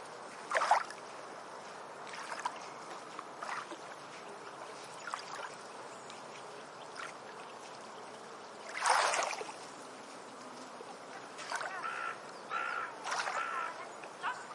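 Tropical forest ambience: a steady trickle of water under short, irregular splashes, the loudest at about a second in and about nine seconds in. Near the end a bird gives a few short warbling calls.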